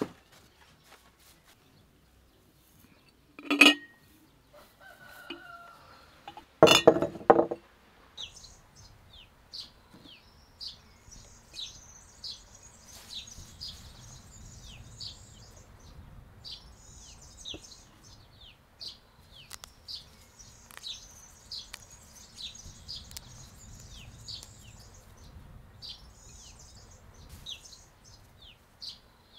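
A rooster crows, a short call about three and a half seconds in and a longer crow around seven seconds. After that, small songbirds chirp in quick high notes.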